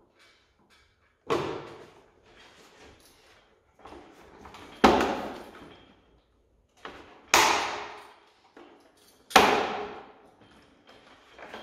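Four loud clunks, about two to three seconds apart, each trailing off over about a second, with faint handling and rustling between them: hard parts being knocked or set down while a motorcycle's front fairing is put together.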